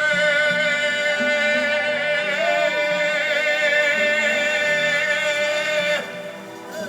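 Live Congolese rumba band music, over which a singer holds one long high note with slight vibrato for about six seconds before breaking off.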